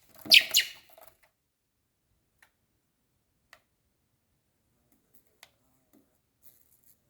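Baby blackbird giving two loud, sharp chirps in quick succession, followed by a few faint ticks.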